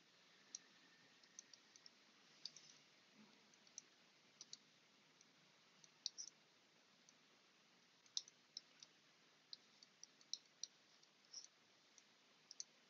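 Near silence broken by faint, irregular clicks, roughly one a second, from digits being handwritten on a computer screen.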